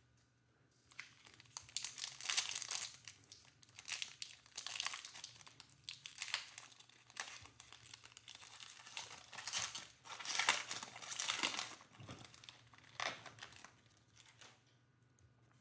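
Foil wrapper of a Panini Mosaic basketball card pack being torn open and pulled apart by hand: a run of irregular crinkling rustles, loudest a couple of seconds in and again around ten to eleven seconds in.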